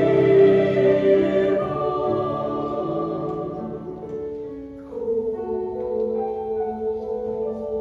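Choir singing sustained chords: a held chord dies away, then the voices come in again on a new chord about five seconds in.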